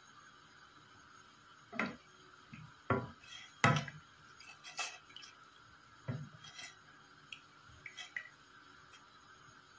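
A wooden spoon stirring herbs and water in a stainless steel pot, knocking against the pot several times, the hardest knocks in the first half.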